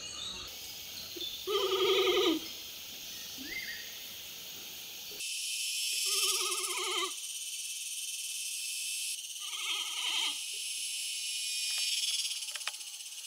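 Giant panda bleating: three separate wavering calls, each about a second long, about two, six and ten seconds in, over a steady high-pitched background hiss.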